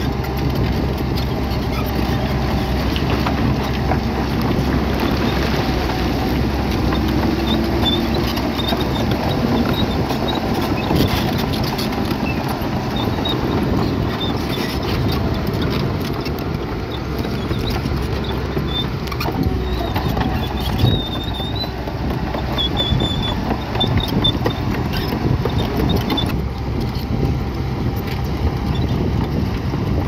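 Bulldozer's diesel engine running steadily, with continual rattling and clanking of metal and rock and short high squeaks now and then.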